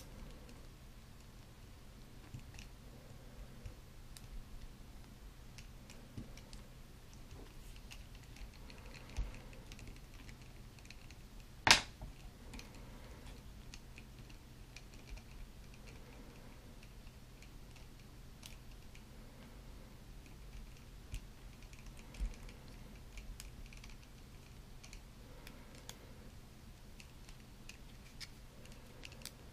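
Hard plastic parts and joints of an action figure being handled: scattered small clicks and rattles, with one much louder sharp click near the middle.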